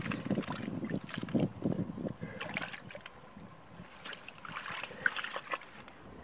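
Hands sloshing and splashing through shallow muddy water in irregular strokes, feeling for fish by hand.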